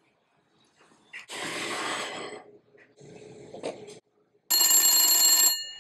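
A telephone bell rings once, for about a second, about four and a half seconds in, its tones lingering briefly as it stops. Before it, a softer hiss-like noise comes about a second in.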